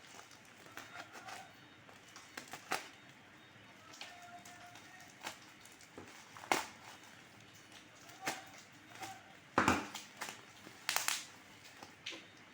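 A shipping package being opened by hand: irregular crinkling of packaging and sharp clicks and tears, loudest about ten seconds in and again about a second later.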